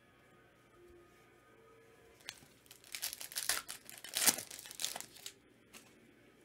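Wrapper of a basketball trading card pack being torn open and crinkled by hand. The crinkling starts about two seconds in, runs for about three seconds, and is loudest just past the four-second mark.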